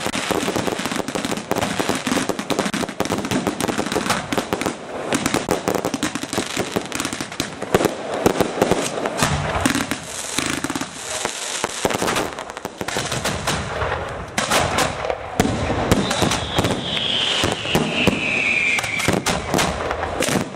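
Fireworks going off in rapid, dense succession: a continuous barrage of bangs and crackling. About three-quarters of the way through, a whistle falls in pitch for a few seconds.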